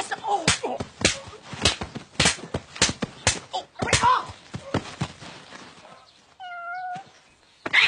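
A run of sharp hits of punches landing, about two a second and slowing off, then a short high whining cry with a steady pitch about six and a half seconds in. Another loud hit comes right at the end.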